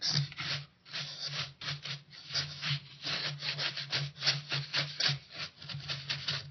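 A dry paintbrush scrubbed back and forth over carved high-density foam, quick brushing strokes a few times a second as it spreads blotches of paint across the rock face.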